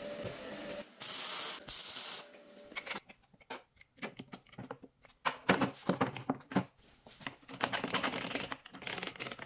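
A burst of arc-welding hiss and crackle on a steel clamp bracket about a second in. Then a string of sharp clicks and knocks as a one-handed bar clamp with a steel jaw is handled and worked.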